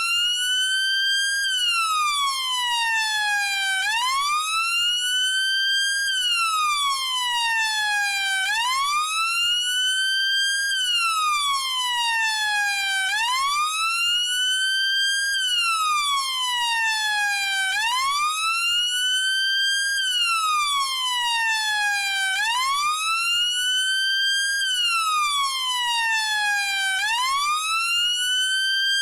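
UK police car siren sounding its wail, one tone climbing and falling in pitch over and over, a full cycle about every four and a half seconds, at a steady loud level.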